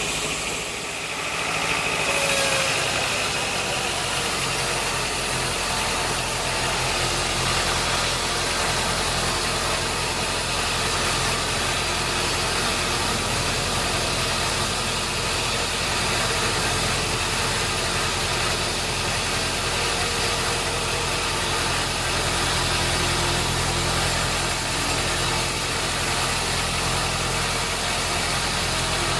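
Sawmill machinery running steadily: an even hiss over a low, constant motor hum, with no cuts or impacts standing out.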